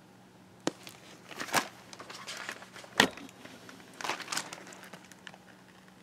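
Pages of a picture book being handled and turned: paper rustling and crinkling in short bursts, with sharp clicks about two-thirds of a second in and about three seconds in.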